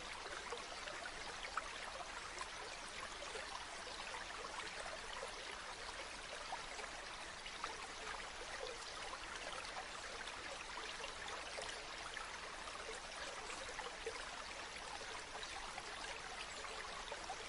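Stream water running steadily, a continuous rush with small splashes and trickles throughout.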